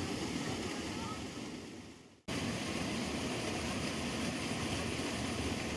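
Steady rushing outdoor noise with a few faint bird chirps. The sound fades away about two seconds in, then returns abruptly at full level.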